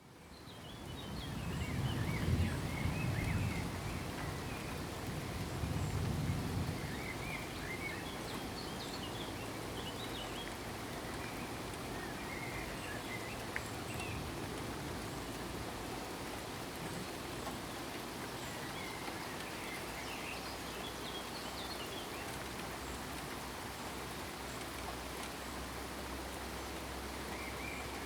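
Steady rainfall, fading in over the first couple of seconds, with birds chirping now and then. A low rumble sits under the rain for the first several seconds.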